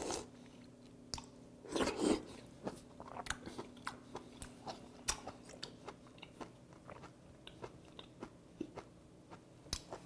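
A person chewing raw sea squirt flesh close to a lapel microphone: a string of small wet mouth clicks and smacks, with one louder wet mouthful about two seconds in.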